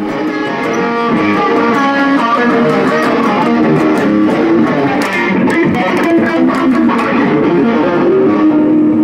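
A guitar being played: a continuous stream of quickly changing notes and chords.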